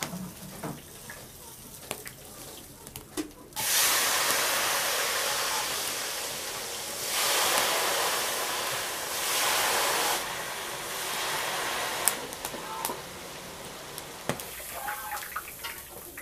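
Tofu deep-frying in a wok of hot oil: a loud, frothy sizzle starts suddenly about three and a half seconds in, swells twice and dies down near the end. A few sharp clicks of the ladle against the wok come before and after it.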